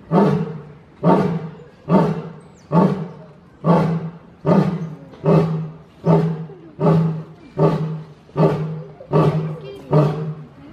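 Male lion roaring in a long, steady series of short, deep grunts, a little more than one a second, each starting sharply and fading away before the next.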